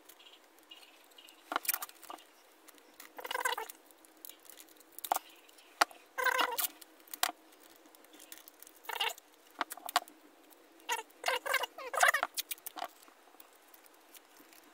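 Small metal parts of an old hand drill handled and worked by hand: light clicks and several short, squeaky scraping sounds at irregular intervals.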